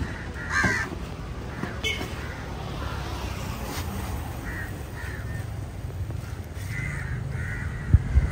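Crows cawing now and then over a steady background hum, with two dull thumps near the end.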